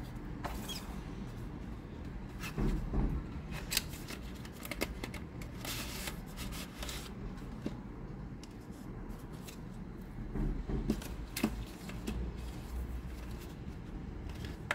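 Cardboard phone packaging and paper leaflets being handled: irregular rustling, scraping and light clicks of card as the inner tray and inserts are lifted out, with louder scrapes about three seconds in and again around eleven seconds.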